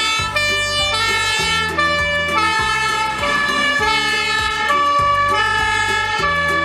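Fire engine's two-tone siren sounding as an aerial ladder truck drives past, its pitch stepping up and down steadily.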